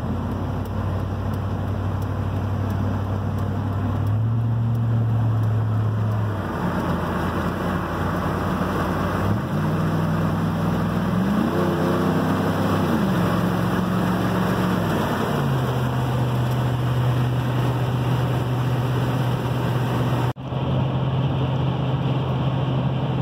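Old pickup truck's engine heard from inside the cab while accelerating: a steady hum that rises in pitch about ten seconds in, then steps down twice as it shifts up through the gears, settling into a steady highway-speed drone. The sound cuts out briefly near the end.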